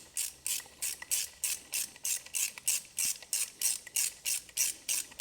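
Socket ratchet clicking in short, even back-strokes, about three a second, as it does up the bolts holding the ignition coil pack to the engine.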